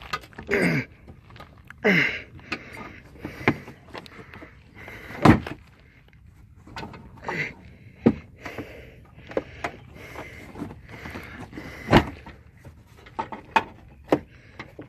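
Hand working up behind a car's plastic wheel-well liner to reach the turn signal bulb socket: scattered knocks, clicks and rustling of plastic against the body, with two short falling sounds in the first two seconds.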